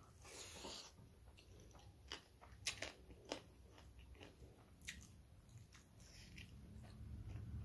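Close-up chewing of a mouthful of rice and curry, with a string of short sharp crunches; the loudest come about two to three and a half seconds in and again near five seconds.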